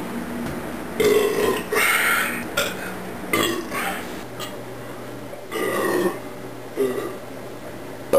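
A man burping about six times in a row, short and longer belches with a rough, low pitch.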